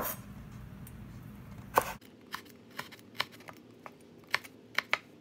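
Cleaver slicing small red chili peppers on a wooden cutting board: irregular sharp taps of the blade striking the board, coming faster, about two a second, in the second half.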